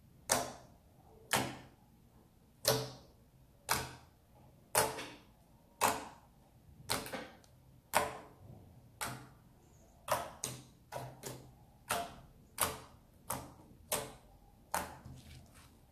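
Fingertips poking into a thick roll of mixed slime, each poke giving a sharp wet click as the slime pops. The clicks come about once a second, then closer together, nearer two a second, in the second half.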